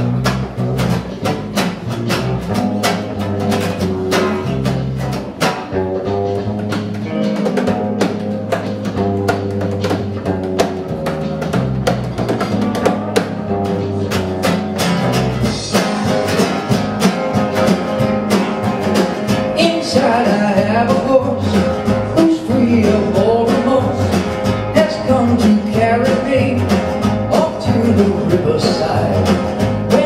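Acoustic guitar strummed in a steady rhythm, with a man singing along from about halfway through.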